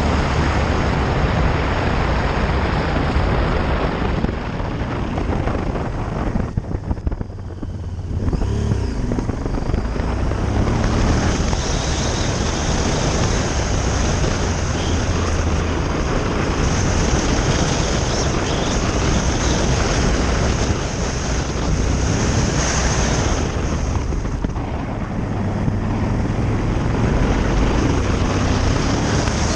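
Honda Varadero motorcycle riding along a gravel road, heard from an onboard camera: heavy wind rush on the microphone over the steady engine and tyre noise. The noise briefly drops away about seven seconds in.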